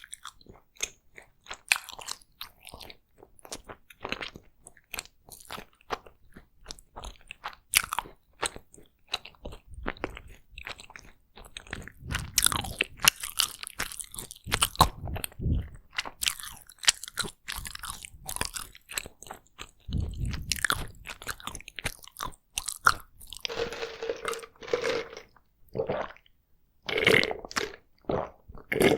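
Close-miked chewing of takoyaki: wet, sticky mouth smacks and clicks in an uneven stream, with bites and crunches. Near the end come a few short, low-pitched sounds from the mouth or throat.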